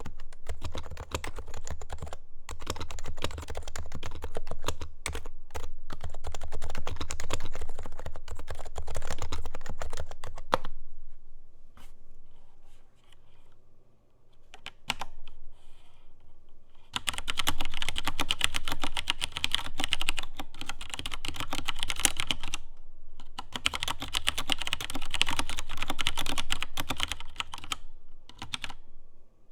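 Typing on an HHKB Hybrid Type-S keyboard, its silenced Topre switches giving a fast, muffled patter of keystrokes, which stops about ten seconds in. After a lull, typing starts again around seventeen seconds in on a Filco Minila Air with Cherry MX Brown switches, brighter and sharper.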